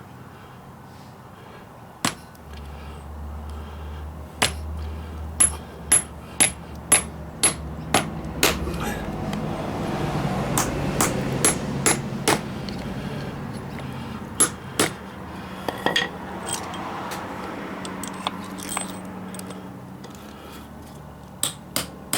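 Hammer blows driving a new metal sleeve into the centre of a rubber sway bar link bushing: a series of sharp, slightly ringing strikes, several in quick runs of about two a second, with pauses between the runs.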